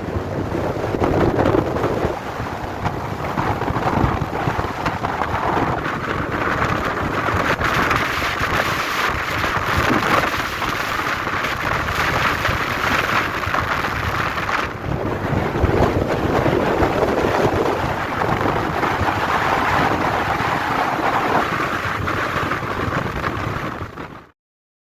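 Gale-force storm wind blowing hard against the microphone, a loud rushing noise that swells and eases in gusts, then cuts off suddenly near the end.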